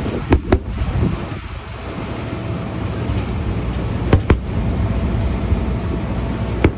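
Aerial firework shells bursting at a distance: two bangs in quick succession just after the start, another pair about four seconds in, and one more near the end. Under them runs a steady low rumble of the boat and wind on the microphone.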